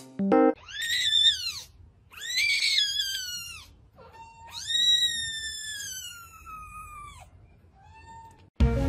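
Kitten mewing: three high-pitched cries, the first two short, rising then falling, the third long and slowly falling, followed by a faint short mew near the end.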